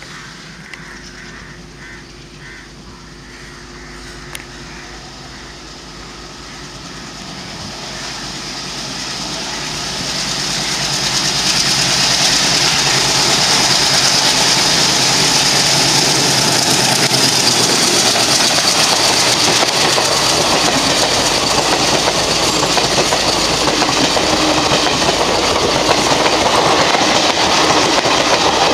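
Express passenger train hauled by an ALCO WDM-3A diesel locomotive, growing steadily louder over the first ten seconds or so as it approaches. It then passes close by with a loud, steady rush and clatter of wheels on rails as the coaches run past.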